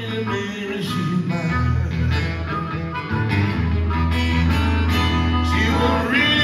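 Live blues music: an acoustic guitar picks an instrumental passage over held low bass notes, with a bent note near the end.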